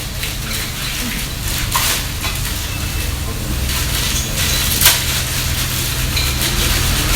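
Restaurant kitchen cooking: food sizzling in a pan with the occasional clank and scrape of a metal utensil against the pan, the sharpest clank about five seconds in, over a low steady hum.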